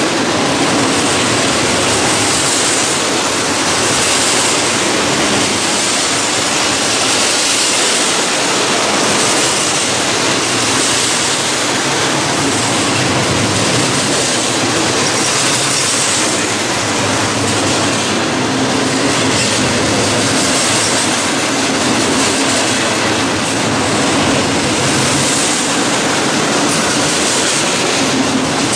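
BNSF double-stack container freight train passing close by: a loud, steady rush of steel wheels on rail, with a high hiss that swells and fades about every two seconds as the cars go by.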